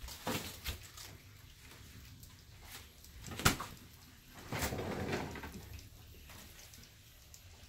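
Kitchen storage being handled: a few light clicks, then a sharp knock about halfway through, then a pull-out drawer under a shelf sliding open with items shifting inside.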